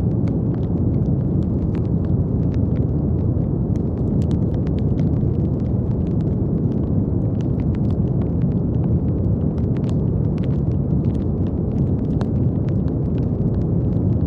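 Steady brown noise: a deep, even hiss weighted toward the low end, with faint scattered crackling clicks over it.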